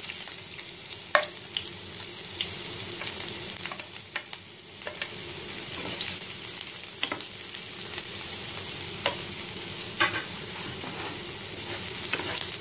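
Chopped onions sizzling steadily in a little hot oil in a non-stick frying pan. A wooden spatula stirs them, knocking and scraping against the pan every second or two.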